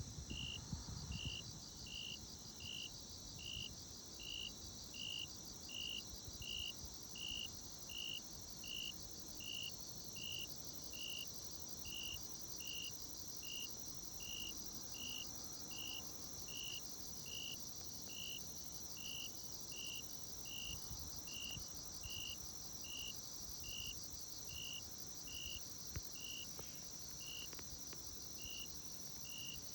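Insects calling: a steady high-pitched trill, with a short chirp repeated about once a second.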